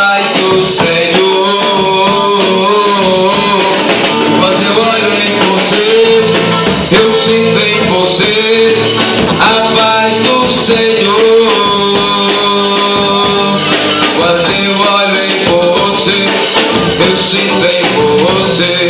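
Recorded music: an instrumental stretch of an upbeat worship song, with guitar and shaker percussion keeping a steady beat.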